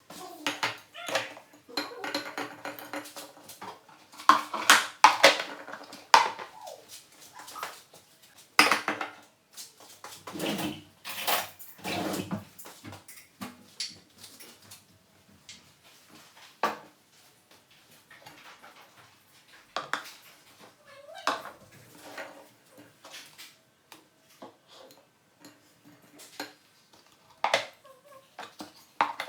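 Cutlery clinking and scraping against plates and bowls, in irregular clatters with sharper strikes every second or so.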